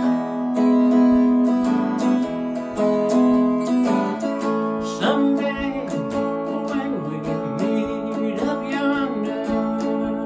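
Clean electric guitar, a Telecaster-style solid body, played in a slow country song with held, ringing chords and single notes. A man's singing voice joins about halfway.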